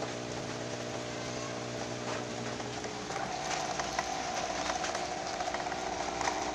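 Aquarium air pump humming steadily, with water bubbling from air-driven sponge filters; faint ticks and splashes from about three seconds in.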